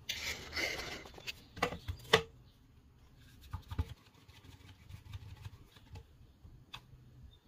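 One-handed bar clamp being picked up and set on the table frame: a rustle of handling, then a few sharp clicks and knocks, the loudest about two seconds in, followed by softer clicks as the clamp is tightened.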